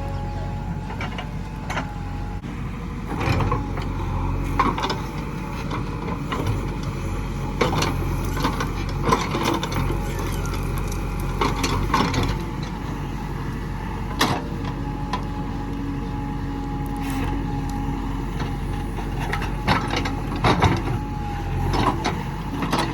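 JCB 3DX backhoe loader's diesel engine running steadily under working load, with irregular clanks and knocks from the backhoe arm and bucket as it digs.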